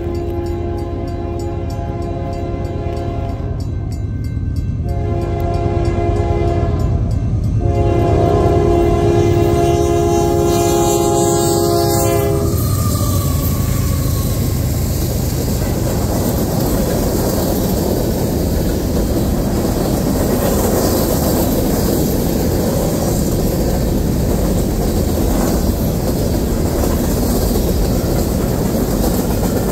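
Union Pacific freight locomotive's air horn blowing for a grade crossing in three blasts, the last held until the locomotive goes by, when its pitch drops. Then freight cars roll past with a steady rumble and the clickety-clack of wheels over the rail joints.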